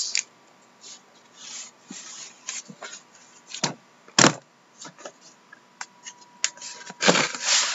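A cardboard case of cards being handled and turned over on a wooden desk: light rubbing, scraping and clicks of cardboard, with one sharp knock about four seconds in. Near the end comes a longer scraping rasp as a blade is run along the packing tape on the box's top.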